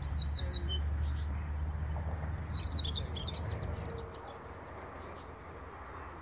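Caged double-collared seedeater (coleiro) singing: a quick burst of high chirps at the start, then a longer phrase of fast, high sliding and repeated notes from about two seconds in, stopping about four seconds in.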